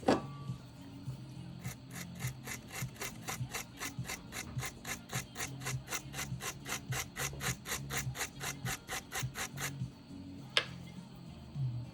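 Cotton swab scrubbed rapidly back and forth over a laptop circuit board near the damaged USB-C connector, a fast rhythmic scraping of about five strokes a second lasting some eight seconds, then a single sharp tick.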